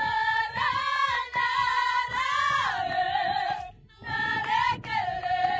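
A group of voices singing together, holding long notes. The melody steps down twice, with a short break just before four seconds in.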